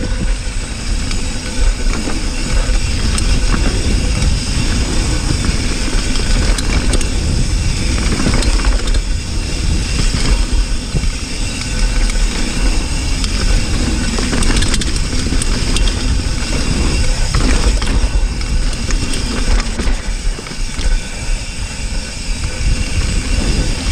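Cannondale hardtail mountain bike rolling fast along a dirt trail, heard from an onboard GoPro. Steady wind rumble on the microphone, with tyre noise over the ground and many small rattles and clicks throughout.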